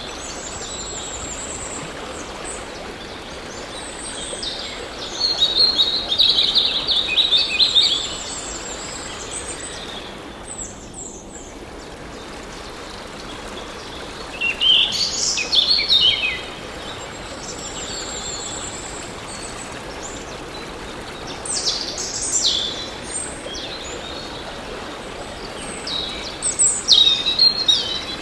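Birds singing in four bursts of high chirping phrases, over a steady rush of flowing water.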